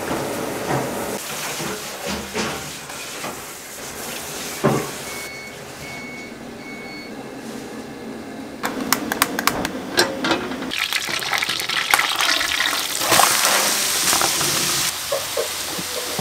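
Restaurant kitchen work sounds: running water and clatter, three short electronic beeps about five to seven seconds in, then a quick run of clicks and a steady hiss.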